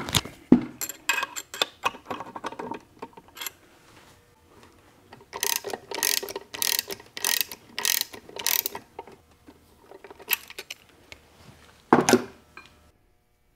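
Steel gearbox parts of a Ford Toploader 4-speed clicking and scraping as they are handled and worked into the case: scattered sharp clicks, then a run of about six rhythmic raspy metal strokes roughly two a second, and a single loud knock near the end.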